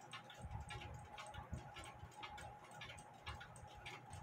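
Faint, even ticking of a mechanical clock, with soft low knocks from a brass clock movement being handled.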